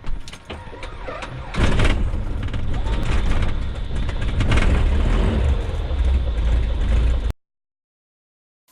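Columbia 350's Continental IO-550 six-cylinder engine being started: about a second and a half of starter cranking with clicks, then it catches and runs steadily and loudly. The sound cuts off abruptly near the end.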